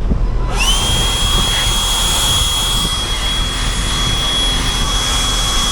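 Air blower blowing dust out of an HVAC unit's cabinet: it spins up with a rising whine into a steady high whine over a loud rush of air, then cuts off abruptly.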